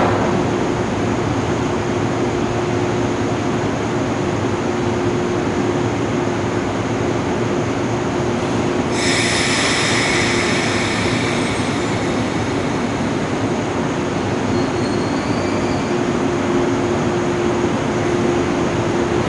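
A JR 189 series electric train standing at the platform with a steady hum from its onboard equipment. About nine seconds in, a sudden high-pitched hiss starts and fades over a few seconds.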